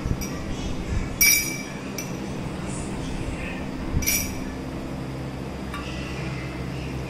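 A metal spoon clinking against glass bowls: two sharp, ringing clinks, about a second in and again near the middle, with a few lighter ticks, over a low steady hum.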